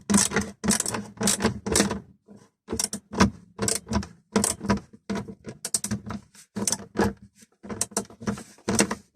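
Screws being driven back into the plastic dashboard tray of a VW Jetta Mk5 with a screwdriver: an irregular run of short clicks and scrapes, several a second with brief pauses.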